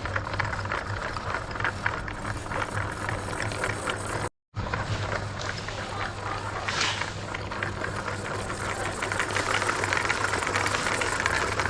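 Small electric motor of a homemade toy car running steadily with a rattling buzz, broken by a short gap about four seconds in and getting a little louder near the end.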